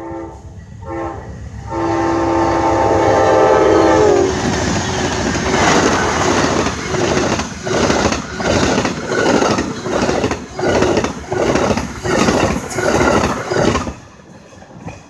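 Amtrak Empire Builder passenger train passing at speed. The lead diesel locomotive's multi-chime air horn sounds a few short blasts, then a long held one that drops in pitch as the engines go by. The bilevel passenger cars' wheels then clatter over the rail joints in a fast, even rhythm of about two beats a second, which stops abruptly as the last car clears.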